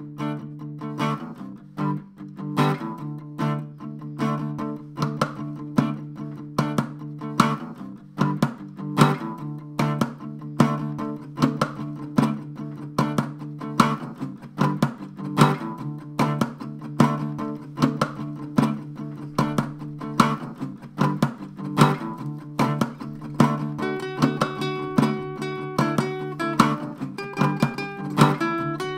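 Acoustic guitar played in a fast, driving rhythm of picked strums over ringing low strings, moving to higher single-note melodic lines near the end.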